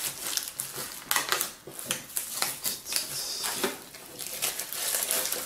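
Plastic shrink wrap crinkling and crackling as it is pulled off a metal tin of colored pencils, with scattered light clicks and knocks of the tin being handled.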